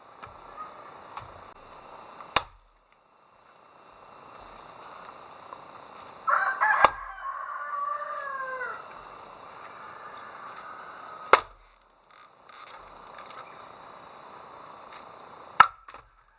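Four sharp knocks a few seconds apart, with a rooster crowing once in the middle, over a steady drone of insects.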